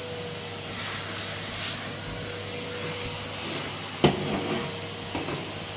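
Red Henry (Numatic) canister vacuum cleaner running steadily, a constant motor whine over the rush of air, with one sharp knock about four seconds in as the nozzle or hose hits something.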